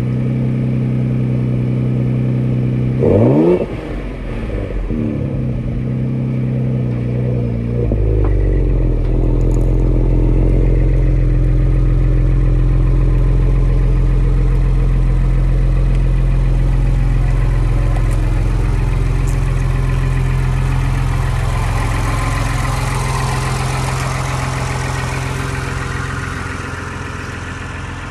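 Ford Explorer ST's 3.0-litre twin-turbo V6 idling through a Thermal R&D 304 stainless exhaust, with one quick rev blip about three seconds in. From about eight seconds on the idle drones deeper and a little louder, easing off near the end.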